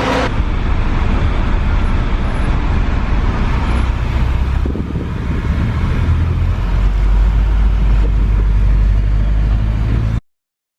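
Steady low vehicle rumble with road noise, cutting off suddenly near the end.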